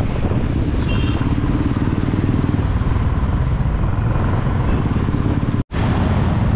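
Motorcycle ride-along sound in city traffic: a steady, loud engine rumble with road and wind noise. There is a brief high beep about a second in, and the sound cuts out for an instant near the end.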